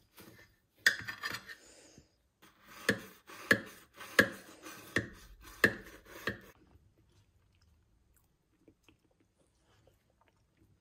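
Kitchen knife sawing through a loaf of sweet pumpkin bread, a series of short rasping strokes about every two-thirds of a second, stopping about six and a half seconds in.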